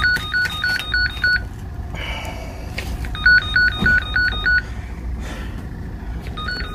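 Door intercom panel calling a flat: an electronic ringing tone that warbles quickly between a lower and a higher pitch. It comes in three bursts of about a second and a half, the second about three seconds in and the third starting near the end.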